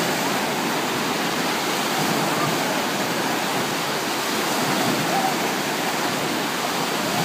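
Wave pool's artificial waves breaking and churning, a steady rush of water.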